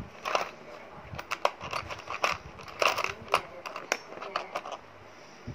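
Irregular small clicks and taps of hands handling a plastic parts case and the metal deck of a rebuildable tank atomizer.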